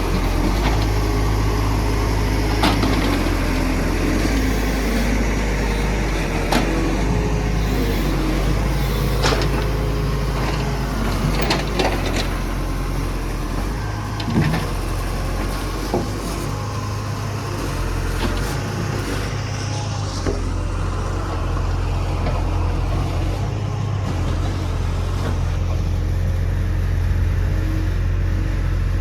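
CASE excavator's diesel engine running steadily, with sharp knocks and clanks every few seconds.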